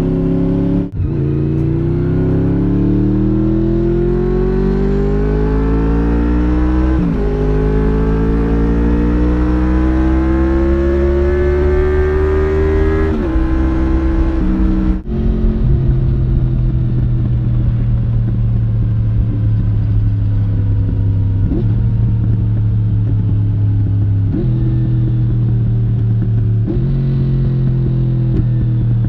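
Honda VFR750F (RC36) 90-degree V4 engine under way, pulling hard with rising pitch through one upshift, then running a little longer at high revs. After a sudden break it cruises at a steady pitch with a few brief shifts of throttle.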